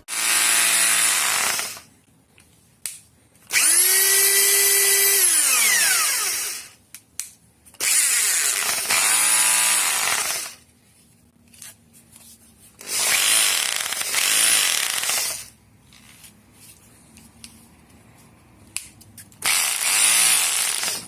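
DeWalt D25124K rotary hammer's electric motor switched on and off about five times, each run lasting two to three seconds before it spins down. These are test runs after a new trigger switch and carbon brushes, fitted to cure a tool that worked only intermittently.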